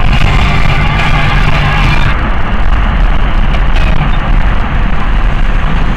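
Steady road and engine noise inside a moving car's cabin at motorway speed, a loud, continuous rumble.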